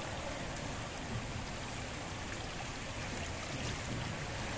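Steady rushing water ambience of an indoor swimming pool, with no distinct splashes standing out.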